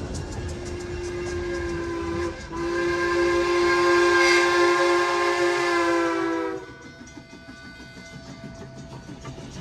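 Steam locomotive whistle blown twice, a short blast and then a long one of about four seconds, cutting off sharply. Quieter train running noise follows.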